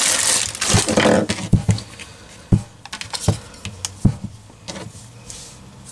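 Clear plastic packaging bag crinkling as it is handled and opened, then a few light knocks and taps of items being set down on the kitchen counter.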